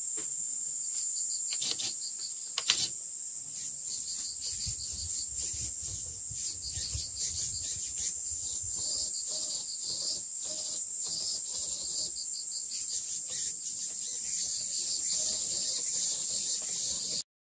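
A steady, high-pitched chorus of insects, with faint scattered clicks underneath; it cuts off suddenly near the end.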